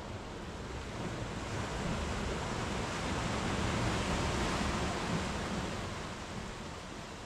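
Sea surf breaking on a sandy beach. The rush of a wave swells to a peak about four seconds in, then fades as the foam washes up the sand.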